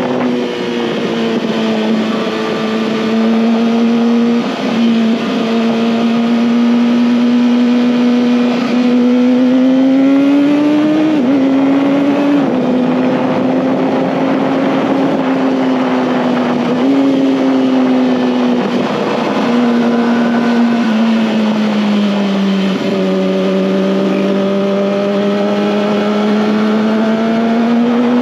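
Kawasaki ZX-6R's inline-four engine running at steady high revs under way, its pitch holding with brief small dips, climbing a little about ten seconds in and falling away a little over twenty seconds in, over steady rushing noise.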